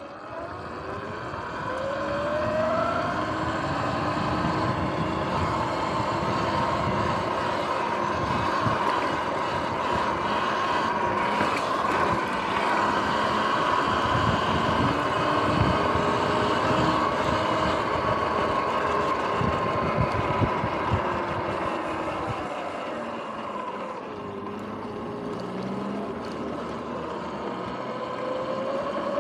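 Sur-Ron X electric dirt bike's motor whining as it rides. The whine rises in pitch as the bike speeds up a couple of seconds in, holds high, drops as it slows about three-quarters through, then rises again near the end, over wind and tyre noise.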